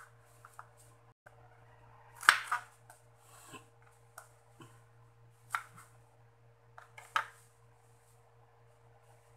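Kitchen knife slicing a red onion on a wooden cutting board: a few irregular, sharp knocks of the blade on the board, the loudest about two seconds in.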